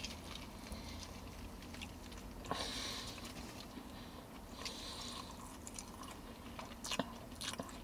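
Faint chewing of a mouthful of burger, with soft wet mouth clicks, over a low steady hum.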